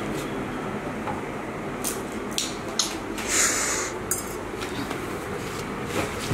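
A steel bowl of milk set down on a stone floor: a few light clinks and knocks, and about three seconds in a short splash of milk slopping out, over steady background noise.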